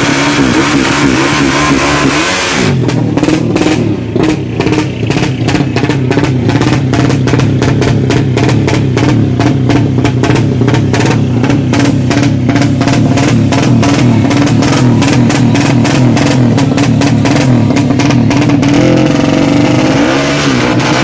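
A motorcycle engine running, mixed with music that has a steady drum beat starting about two and a half seconds in.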